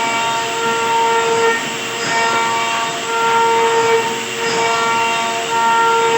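High-speed router spindle whining at a steady pitch as it cuts wood, its tone swelling and easing every second or so as the cutter bites.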